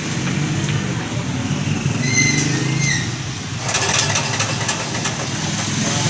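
New Yamada 7 HP engine being rope-started: a short squeal about two seconds in, then it turns over with a rapid clatter from just past halfway, over a steady low hum.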